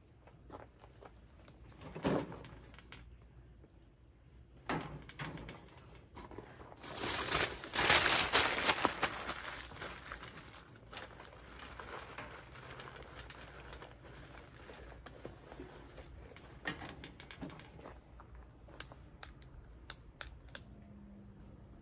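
Paper crumpling and rustling and pieces of charcoal being handled as a chimney charcoal starter is loaded, loudest for a few seconds in the middle. A few sharp clicks near the end.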